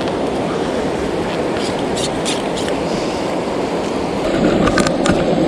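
Steady rush of flowing river water, with a few faint clicks about two seconds in and again near the end.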